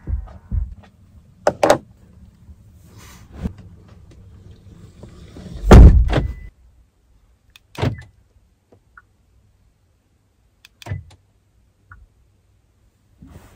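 A Kia Seltos tailgate is pulled shut from inside the car with one loud, heavy thunk about six seconds in. Around it are scattered lighter clicks and knocks from handling inside the cargo area.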